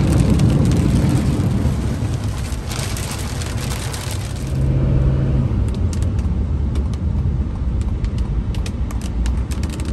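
Pickup truck with a Duramax 6.6 diesel driving in heavy rain, heard from inside the cab. There is a steady low rumble of engine and road, with a hiss of rain and tyre spray that fades about four and a half seconds in, leaving scattered light ticks.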